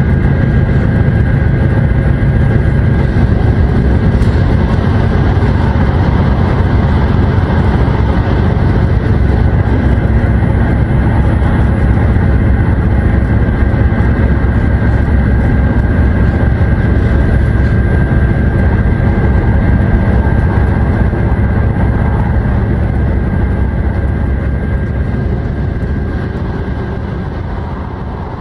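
HOT7000-series diesel railcar running at speed, heard from inside its front end: a steady low rumble of engine and wheels on the rails with a faint steady whine above it. The sound fades out over the last few seconds.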